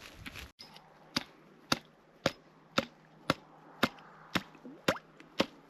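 Ice chisel chopping into creek ice: sharp, evenly spaced strikes about two a second, nine in all, starting about a second in.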